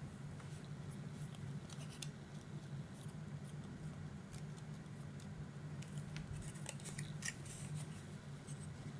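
Light crackles and small clicks of paper and a plastic glue bottle being handled while glue is squeezed out, most of them about six to seven and a half seconds in, over a steady low hum.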